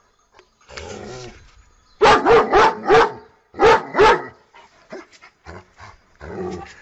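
German Shepherd barking: a quick run of four loud barks about two seconds in, then two more about a second later.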